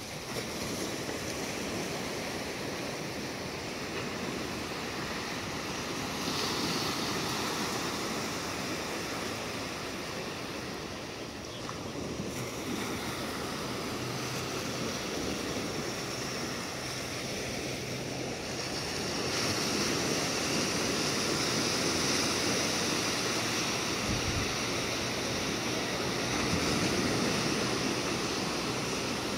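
Ocean surf breaking just offshore and washing up a sandy beach in shallow sheets of foam: a steady rushing hiss that grows louder about six seconds in and again from about twenty seconds on.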